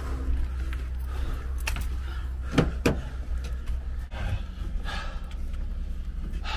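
Knocks and clunks of gear being handled in a pickup truck bed, with two sharp knocks about two and a half seconds in, over a low steady rumble.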